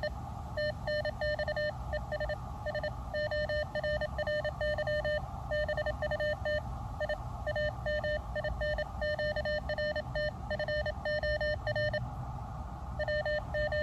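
Morse code (CW) received on the Elecraft KX2 transceiver's speaker: one steady tone keyed on and off in dots and dashes, with short pauses between words, over a hiss of band noise.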